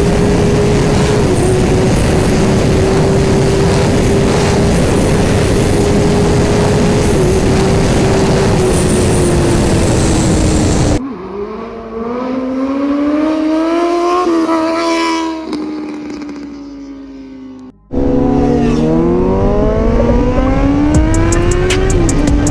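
Motorcycle engine at high, steady revs under loud wind rush. About eleven seconds in it cuts suddenly to a quieter stretch where the revs climb, drop at a gear change and fall away. Near the end the wind rush returns loud, with the engine pitch climbing again under hard acceleration.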